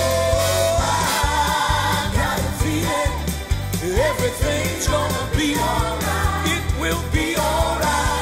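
Live gospel band playing an upbeat song, with singers' voices over a steady drum beat and bass.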